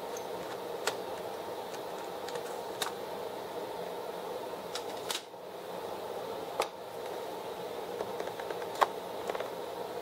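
Scattered small clicks and taps of hands handling a laptop's plastic case and internal parts while taking it apart, the sharpest near the end, over a steady background hum.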